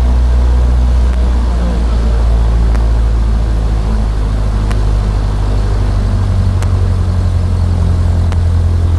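Cessna 152's four-cylinder Lycoming piston engine and propeller idling steadily just after start-up. Its pitch shifts slightly about a second in.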